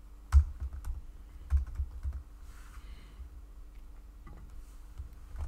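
Typing on a computer keyboard: irregular keystrokes, mostly in the first two seconds, then a pause and a few more keystrokes near the end.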